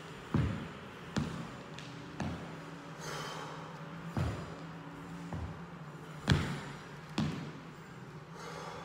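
Dull thuds of knees and sneakers landing on a thin exercise mat over a wooden parquet floor as a person steps down into a kneel and back up to standing, about seven irregular thuds with the loudest about six seconds in. A steady low hum runs underneath.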